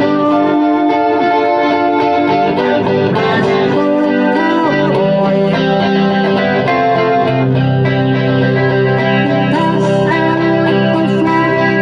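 Background music led by electric guitar with effects, playing a melody over sustained chords.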